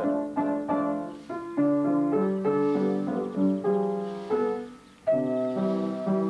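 Music on a keyboard instrument: a slow melody over held chords, breaking off briefly about five seconds in before going on.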